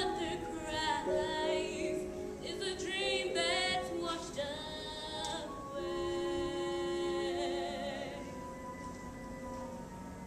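A young female voice sings the closing phrase of a stage-musical ballad over accompaniment. She holds the final note with vibrato from about six seconds in to about eight seconds, after which the accompaniment lingers more quietly.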